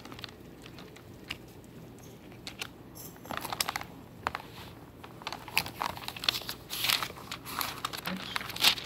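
Close rustling and crinkling, like paper or plastic being handled, with scattered small clicks; sparse at first, then busier from about three seconds in, with the loudest crackle near the end.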